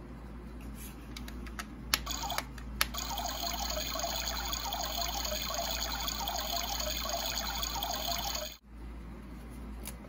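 A few plastic clicks as the toy coffee maker's on/off button is pressed, then its small pump runs for about six seconds, buzzing steadily as it pushes water through with a fluttering trickle, and stops abruptly.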